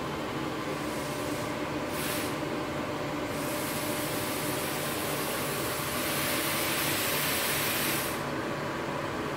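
Argon gas hissing from a TIG welding torch, coming on in a few short spurts, then running steadily for about four seconds before cutting off sharply near the end. Under it a steady machine hum.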